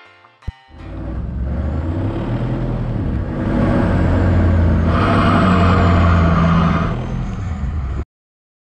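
Off-road vehicle engines running hard while pulling against each other on a tow strap, getting louder about three seconds in, then cutting off abruptly near the end.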